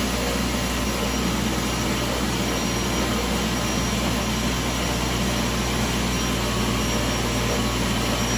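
Monsieur Cuisine food processor running its chopping blades at a steady speed, a continuous motor hum, partway through a 30-second chopping cycle.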